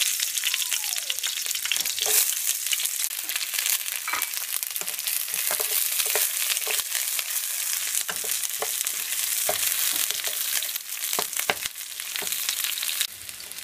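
Sliced onions sizzling in hot oil in a frying pan on high heat, with a wooden spatula scraping and knocking against the pan as they are stirred. The sizzle drops off sharply just before the end.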